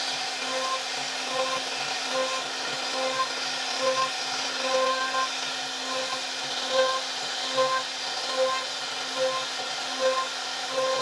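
CNC router spindle running at a steady whine while its bit carves a relief pattern into hardwood. The cutting sound swells in short pulses roughly every 0.8 seconds as the bit moves through each stroke of the carving.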